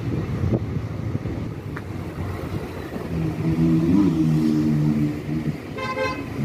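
Road and engine noise of a vehicle driving, a continuous low rumble with some wind on the microphone. A low steady drone of passing traffic rises over it for about two seconds in the middle. A short horn honk sounds near the end.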